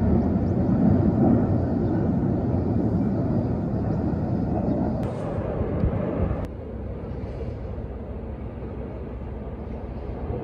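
Distant rumble of Blue Impulse's Kawasaki T-4 jets flying in formation overhead. It drops abruptly about six and a half seconds in, then carries on as a quieter, steady rumble.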